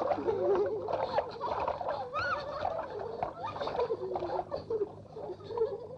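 Several young women's voices chattering and calling out over one another, fading somewhat near the end.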